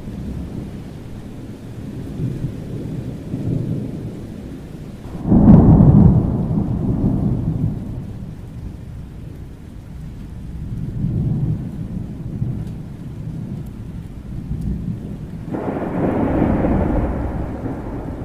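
Thunderstorm: rolling thunder rumbling over steady rain, with a sudden loud clap about five seconds in that dies away over a few seconds, and another swell of thunder near the end.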